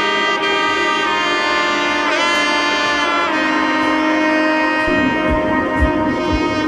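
Background music: a held lead melody that slides in pitch over sustained notes, with a low, steady beat of about two thumps a second coming in about five seconds in.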